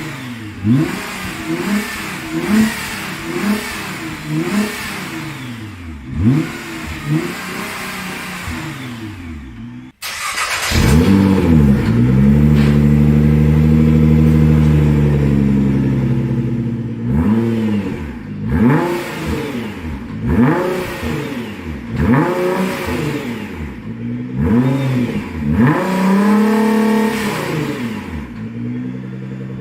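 Nissan GT-R R35's twin-turbo V6 exhaust revved at a standstill in repeated throttle blips, each rising and falling in pitch. About ten seconds in, the sound cuts off abruptly. It comes back with the revs held high and steady for several seconds, then more short blips follow.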